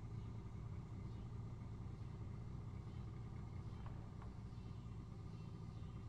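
Steady low rumble, with two faint short sounds about four seconds in.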